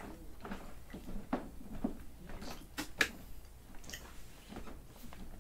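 Chewing a sticky pineapple fruit gummy candy: irregular soft mouth clicks and smacks, with one sharper click about three seconds in.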